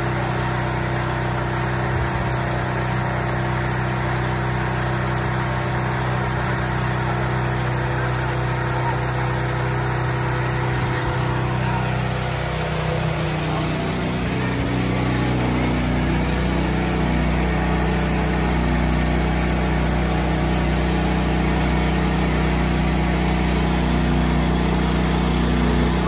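Small gasoline engine of a Frontier portable bandsawmill running steadily. About halfway through, its note shifts and it grows slightly louder as the band blade cuts into an oak log.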